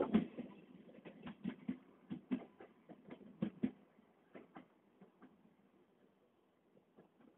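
Wheels of a Pesa 620M diesel railcar clicking over rail joints as it pulls away. The clicks come in quick pairs, one pair about every second, and fade out over the first five seconds.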